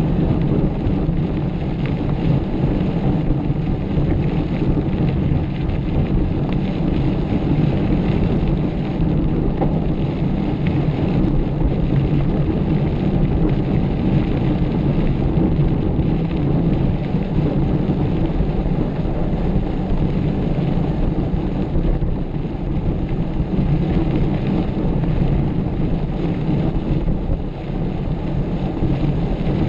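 Steady rumbling rush of wind buffeting the microphone and the rattle of a mountain bike riding over rough off-road ground at speed.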